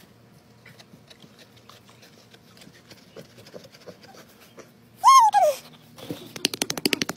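Faint scratching of a garden rake's tines over a pig's back. About five seconds in, the pig gives a loud, short squeal that falls in pitch. Near the end there is a fast run of rasping pulses, about a dozen a second.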